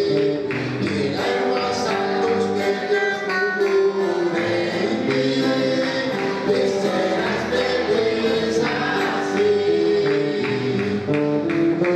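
A man singing a Spanish hymn into a microphone over instrumental accompaniment, in long held notes with a steady beat.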